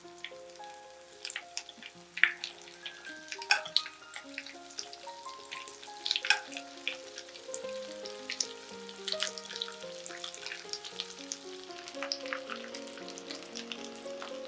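Breaded potato patties frying in shallow vegetable oil: a steady sizzle with sharp crackles and pops scattered through it, while the patties are turned over with forks.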